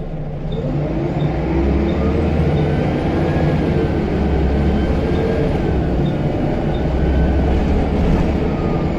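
Scania L94UB bus engine pulling under load with its turbocharger whistling: the whistle rises over the first few seconds, holds steady, then falls away near the end.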